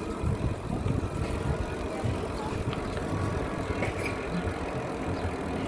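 Steady low rumble of wind on the microphone and tyres rolling on asphalt from a moving gravel bike.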